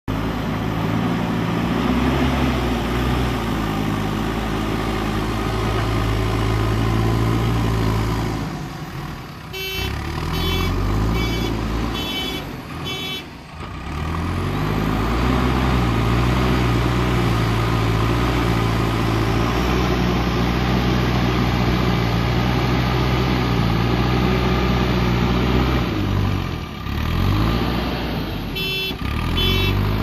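JCB 3DX Super backhoe loader's diesel engine working under load while dozing soil with the front bucket, engine speed rising and falling. A reversing alarm beeps steadily for a few seconds about ten seconds in and again near the end.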